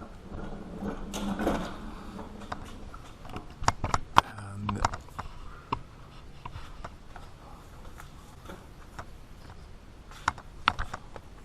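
Scattered light clicks and taps of small metal and plastic parts being handled, with a cluster of louder clicks a few seconds in.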